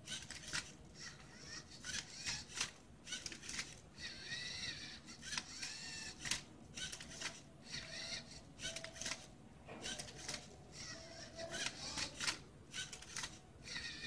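LEGO Mindstorms Rubik's-cube-solving robot at work: its small electric motors whir in short spurts amid rapid, irregular plastic clicks and clatter as it turns and flips the cube.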